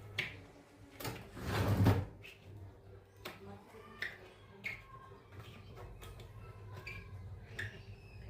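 Speaker cabinet and woofer being handled. A loud scraping rumble comes about a second in, followed by scattered small knocks and clicks over a low steady hum.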